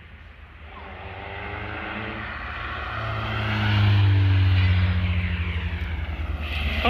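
Rally car engine approaching and passing at speed, loudest about four seconds in, its note falling as it goes by. Near the end a second rally car comes in, loud and revving hard.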